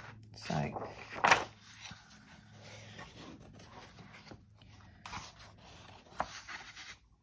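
Sheet of pastel paper being handled: scraping and rustling, with a sharp rustle about a second in and two smaller ones near the end.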